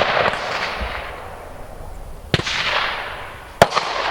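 Gunfire from other shooters down the range: the echo of a shot fades through the first second, then two sharp gunshots come about two and a half seconds in, a little over a second apart, each followed by a long rolling echo.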